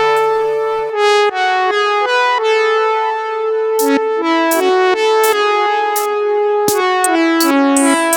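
Instrumental passage of a Malayalam devotional song: a keyboard melody of changing notes over held chords, with percussion hits joining about four seconds in.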